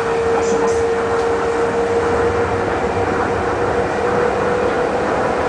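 Steady running noise of a moving vehicle, with a constant mid-pitched hum throughout.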